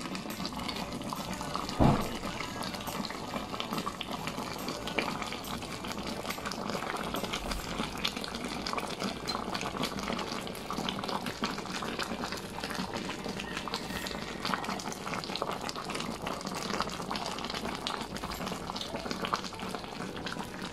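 Sweet chili and oyster sauce bubbling at a steady boil around shrimp in an electric skillet, with fine crackles throughout. A single sharp knock sounds about two seconds in.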